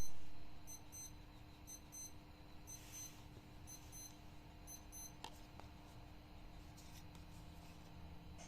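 Small electronic device giving high-pitched double beeps about once a second, which stop after about five seconds, followed by a couple of light clicks.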